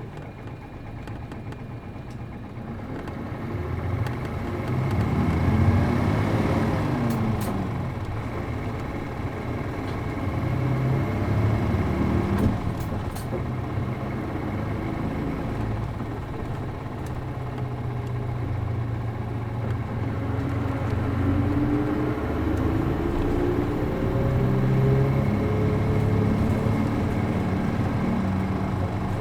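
City bus's MD92TJ diesel engine pulling away under load: the engine note rises from a quiet idle about three seconds in, drops back at a gearshift, runs steadily, then climbs again in a long rising whine near the end as the bus accelerates.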